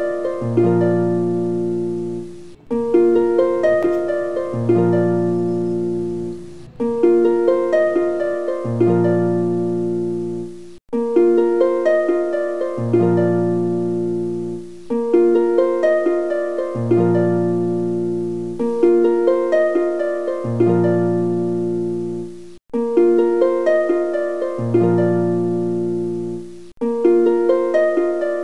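Background music: plucked string notes over a low bass line, a short phrase looping about every four seconds.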